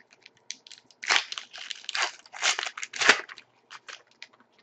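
Hockey-card pack wrapper crinkling and crumpling as it is torn open, in several loud ragged bursts between about one and three seconds in, with lighter rustles around them.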